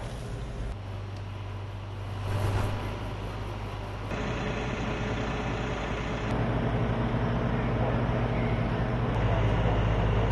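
Fire engine engines running at the scene, a steady low drone whose level and tone shift abruptly a few times.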